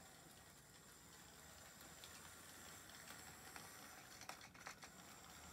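Faint, steady hum and hiss of a Hornby Santa's Express model train running around its track, with a few light clicks about four seconds in.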